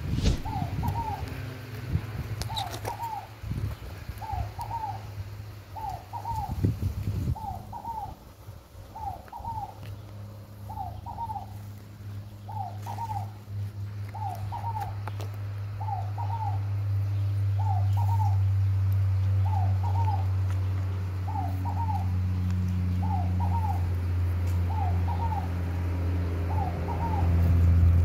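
Scaled dove (fogo-apagou) singing its call, a short phrase of a few notes repeated steadily about every second and a half. A steady low hum underneath grows louder in the second half, with a few knocks in the first several seconds.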